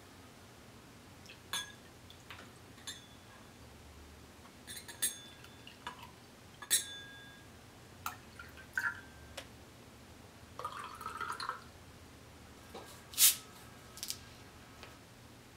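Glassware clinking: small shot glasses knocking against each other, the table and the rims of champagne flutes, several knocks leaving a short ringing tone. There are short trickles of liquid poured into the flutes between them, and the loudest knock comes near the end.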